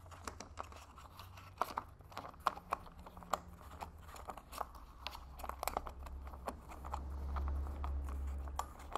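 Irregular small clicks and scrapes of an Ikea Not lamp's metal flange and clear plastic threaded nut being unscrewed by hand. A low rumble grows louder past the middle and fades just before the end.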